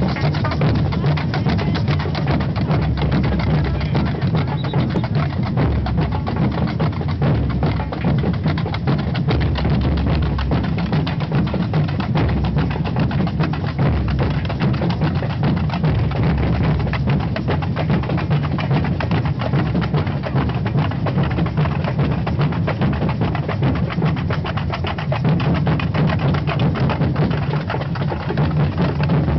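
Samba percussion band (bateria) playing a continuous, fast, dense beat on drums, including small hand-held tamborims struck by the players, over a steady deep drum pulse.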